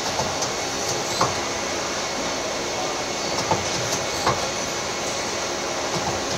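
Mori Seiki CNC lathe running with a steady machine whir, broken by a few short, sharp clunks spaced a second or more apart, as its turret indexes.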